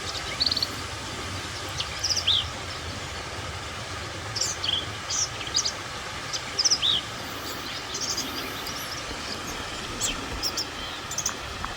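Steady rushing of a distant waterfall, one that only runs after heavy rain, with small birds chirping repeatedly over it.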